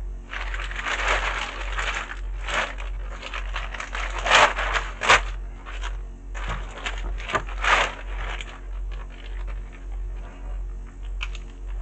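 Clear plastic packaging bag crinkling and rustling as it is handled in a cardboard box, with a few louder crackles about four, five and eight seconds in, over a steady low hum.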